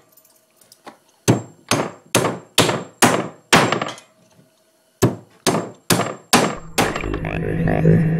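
Framing hammers driving nails into a wooden board: sharp strikes about two a second, a run of six and then a run of five after a short pause. Near the end a short music sting comes in.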